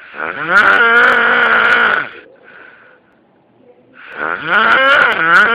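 A man snoring loudly: two long snores of about two seconds each, each with a strong pitched tone that rises at the start and then holds, and a short faint breath between them. He blames the unusual sound on being ill.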